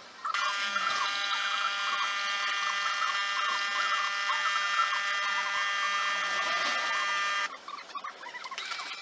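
Electromagnetic vibration pump of a De'Longhi ESAM1000SJ espresso machine running, a steady buzz for about seven seconds that then cuts off suddenly.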